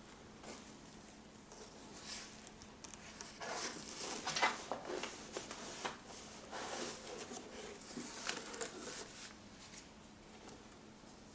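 Cardboard box flaps being pulled open and handled: a run of rustling and scraping of cardboard, then a bundle of folded paper road maps being lifted out, with paper rustling. The handling dies down about nine and a half seconds in.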